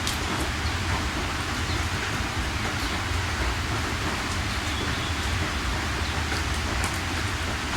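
Steady heavy rain falling, an even hiss with a constant low rumble underneath and scattered drop ticks.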